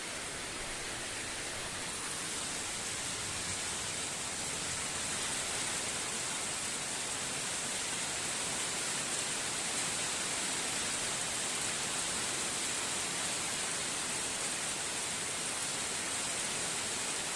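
Storm rain falling steadily: an even, unbroken hiss.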